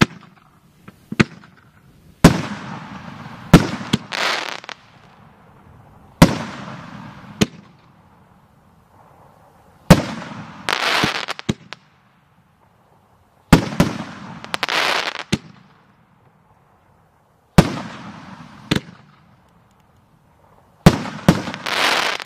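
Nuke Active multi-shot firework cake by Cutting Edge Fireworks, firing about six volleys a few seconds apart. Each is a sharp bang followed by a second or two of crackling and hissing from the bursting stars.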